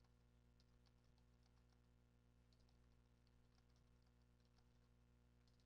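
Faint computer keyboard typing: scattered, irregular quiet key clicks over a low steady hum, near silence overall.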